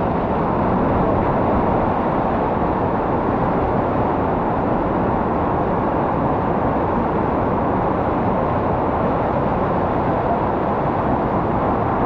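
Steady, loud roar of rushing water from a waterfall, an even noise with no breaks.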